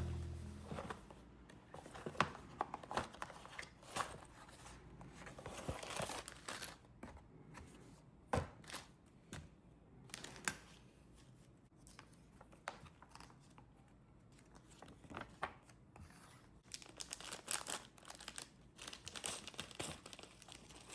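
Plastic packaging being handled: irregular crinkling and tearing, with scattered sharp clicks and taps.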